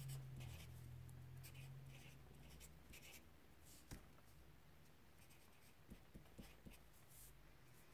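Faint scratching of a pen writing on paper in short strokes, with a soft tap about four seconds in and a few light clicks near the end.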